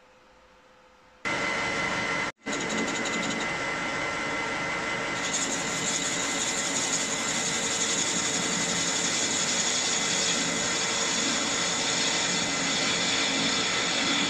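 Metal lathe running with its chuck spinning while the tool faces the back of a small cylinder end plate: a steady machine whine with cutting noise. It starts suddenly about a second in, drops out for an instant, and a hissier cutting sound joins about five seconds in.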